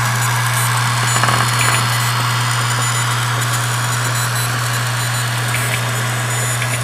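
Dell M65 notebook giving off a steady electronic whine and hiss over a constant low hum, the recurring noise fault that a replacement unit still has, which the owner takes for a problem of the whole model series.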